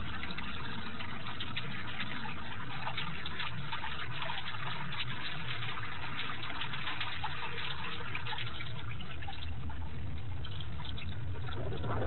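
Storm rain pattering and dripping on the concrete nest ledge, a dense hiss of many small drop strikes over a steady low rumble.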